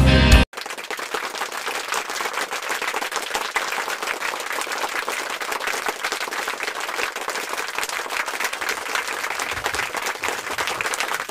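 Guitar music cuts off about half a second in, followed by steady applause, a crowd clapping.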